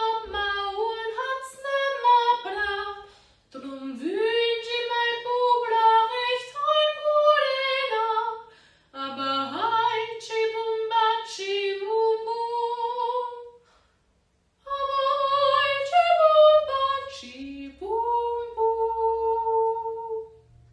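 A high singing voice carrying a slow unaccompanied melody, like a lullaby, in phrases of a few seconds with short pauses between them; each phrase opens with an upward slide in pitch.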